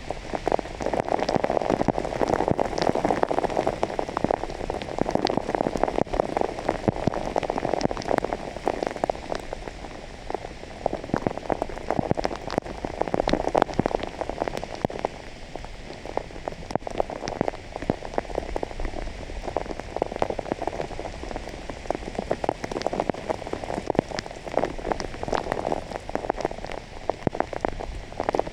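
Heavy rain with dense, rapid drop hits, swelling and easing in waves every few seconds.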